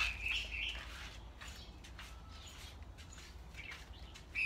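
Red-whiskered bulbuls giving short chirpy calls, a few at the start and again near the end, quieter in between.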